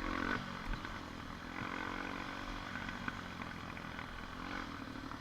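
ATV engine running while riding along a trail, a steady hum with small shifts in pitch.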